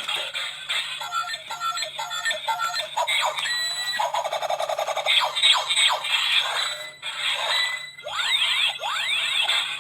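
Tinny electronic toy music, with short beeps early on and several sweeping pitch glides, thin in the bass as from a toy's small speaker.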